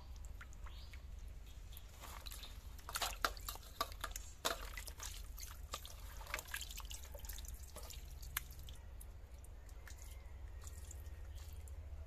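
Water splashing and dripping as raw fish pieces are tipped from a plate into a steel bowl of water and rinsed by hand, with a burst of sharp splashes about three to five seconds in and lighter splashes after.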